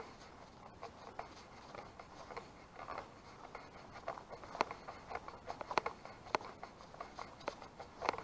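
A person's footsteps walking at a steady pace, short scuffing clicks about every half second or so, with light rustling between them.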